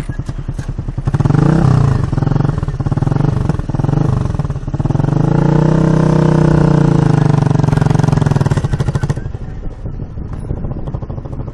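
Cruiser motorcycle engine running close by, its revs rising briefly twice and then climbing and falling again over a few seconds as the bike pulls away. It turns quieter near the end as the bike moves off.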